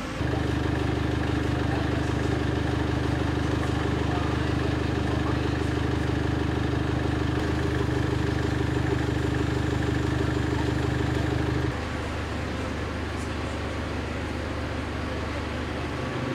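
Diesel engine of a parked fire engine idling steadily close by. About twelve seconds in, the sound drops to a quieter engine hum.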